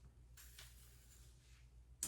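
Near silence: room tone with a low hum and a faint, brief rustle about half a second in.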